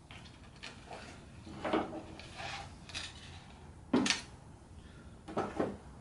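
Hand tools and a coil of galvanized wire being handled on a workbench: a few clinks and clatters with rustling between, and one sharper click about four seconds in.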